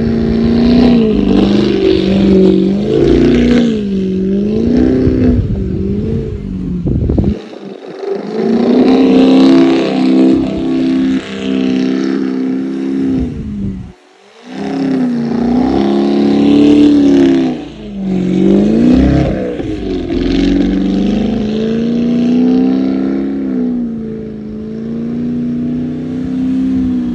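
Lamborghini Urus twin-turbo V8 revving up and down again and again as the SUV spins donuts on snow, its note swinging through repeated rising and falling sweeps. The engine note drops out briefly about seven and a half seconds in and again about fourteen seconds in.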